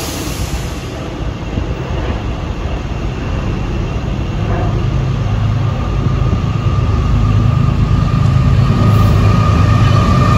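CSX freight train's lead diesel locomotives approaching, a low engine rumble growing steadily louder, with a steady higher whine rising over it in the second half.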